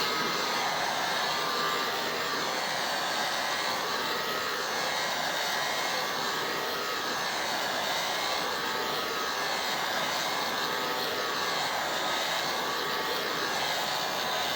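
Heat gun blowing hot air steadily, softening the adhesive that holds an iMac's display glass in place.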